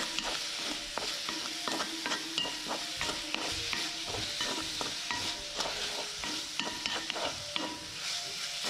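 Diced chicken and onion frying in oil in a metal pan with a steady sizzle, while a wooden spatula stirs it, knocking and scraping against the pan many times.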